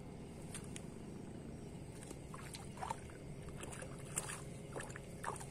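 Faint water sloshing over a steady low rumble, with scattered small splashes and ticks.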